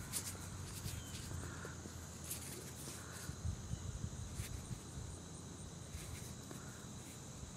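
Insects trilling steadily in a high, unbroken drone, with faint footsteps and scattered light clicks underneath.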